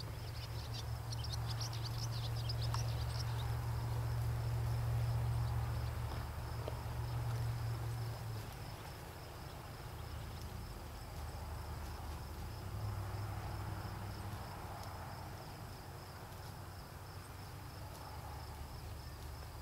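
Insects chirping in a steady, evenly pulsed high trill, with a few brief higher chirps about a second in. Underneath runs a low steady rumble, loudest in the first half.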